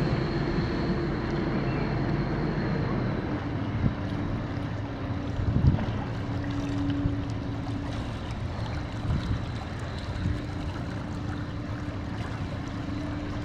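Diesel engine of a passing inland motor cargo ship running steadily: a low drone with a constant hum and an even wash of noise, with wind on the microphone.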